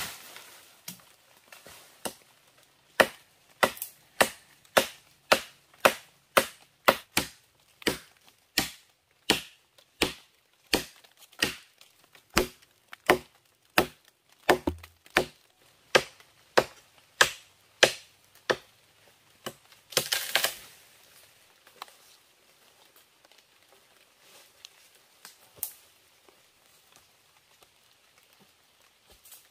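A blade chopping into a fallen log, sharp wooden strikes in a steady rhythm of a little under one and a half a second, cutting a V-notch through the trunk. About twenty seconds in the chopping stops and there is a short, louder rush of noise, then only faint scattered ticks.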